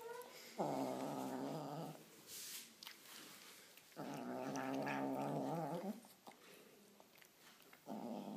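White kitten growling over its food, three long low growls of about two seconds each, with small clicks of eating between them: the growl of a kitten annoyed while it eats.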